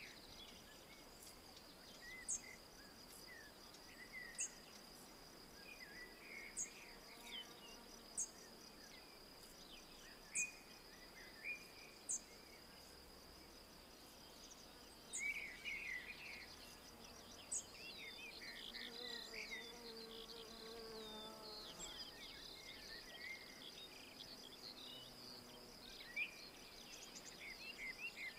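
Faint woodland ambience: a steady high insect trill, with birds chirping and a thin, very high bird note repeating every second or two.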